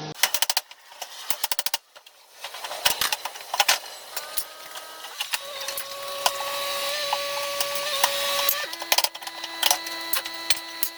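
Breaking out and digging concrete and rubble over a sewer line: rapid mechanical clattering and sharp knocks, with a steady machine hum through the second half.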